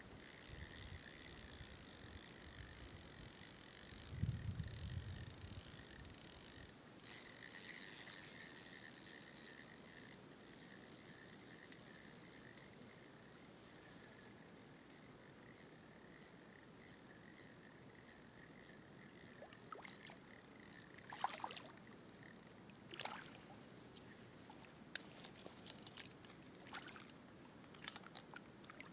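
Mountain stream running, a steady rush of water that eases about halfway through, with scattered sharp clicks and knocks in the last part.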